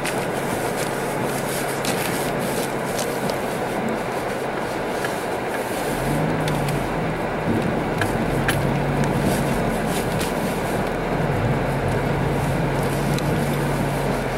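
Car cabin noise while driving on a snow-covered road: steady tyre and road rush with the engine's hum underneath, the hum growing stronger and lower about six seconds in. A few faint ticks are scattered through it.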